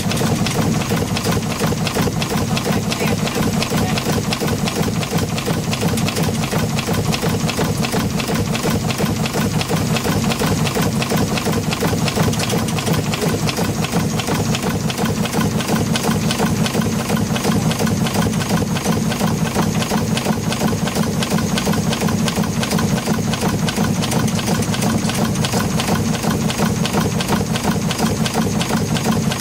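Small vertical marine steam engine in a steam launch running steadily at speed, its cranks and valve gear making a fast, even clatter.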